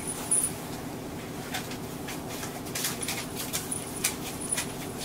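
Mitsubishi Aerostar one-step city bus heard from inside the cabin: a steady engine and cabin hum with scattered light clicks and rattles.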